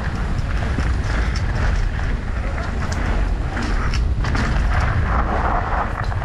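Wind buffeting the microphone with a heavy low rumble while riding, with scattered clicks and knocks.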